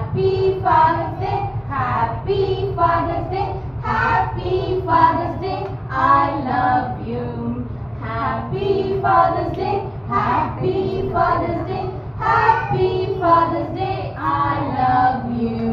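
Young children singing a song together with a woman's voice, over a steady low hum.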